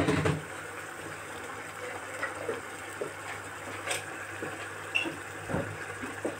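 Shredded chicken in tomato sauce simmering in a wide pan: a steady soft bubbling hiss, with a few light clicks.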